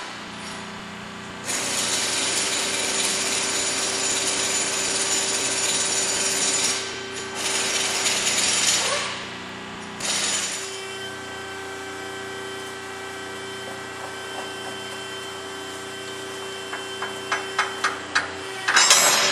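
Hydraulic PTO drive slowly turning a square baler's mechanism. A steady hum runs under loud chain and driveline clatter for the first several seconds, then quieter running. Near the end comes a quick run of sharp clicks as the knotters cycle.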